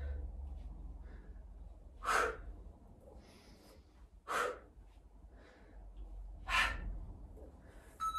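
A woman's forceful, noisy exhales during a high-intensity exercise, three strong hissing out-breaths about two seconds apart with fainter breaths between, over a low steady rumble.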